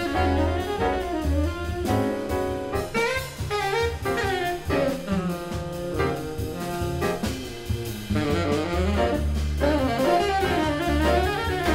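Live jazz quartet: a tenor saxophone plays a winding melodic line over plucked double bass, piano and drum kit.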